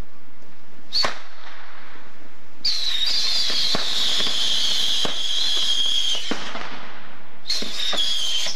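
Ground fireworks going off with a shrill whistle. A short whistle comes about a second in, then a long one lasting about three and a half seconds that sinks slightly in pitch, with a few sharp cracks, and a third whistle near the end.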